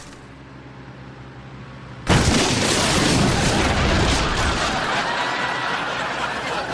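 An explosion: a sudden loud blast about two seconds in, followed by a long wash of noise that slowly dies down.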